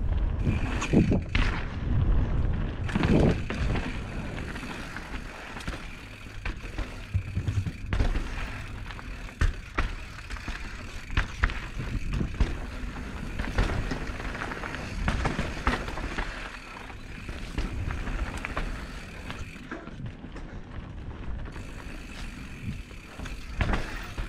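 Mountain bike descending a dirt singletrack trail, heard from a camera on the rider: tyres rolling over packed dirt and roots, with many sharp knocks and rattles from the bike over bumps, over a low rumble of wind on the microphone.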